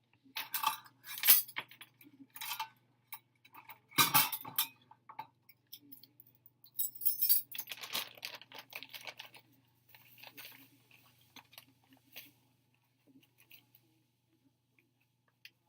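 Kitchen handling sounds as drink ingredients are prepared: irregular clinks, taps and short scraping rustles of utensils, glass and dishes, with one sharp knock about four seconds in, thinning out to scattered light ticks near the end.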